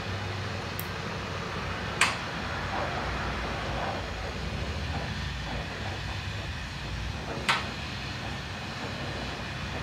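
Lampworking bench torch burning with a steady hiss and low rumble, broken twice by a sharp click about five and a half seconds apart.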